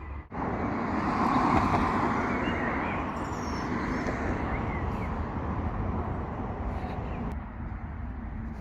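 A car passing on a nearby road, its tyre and engine noise swelling about a second in and slowly fading away.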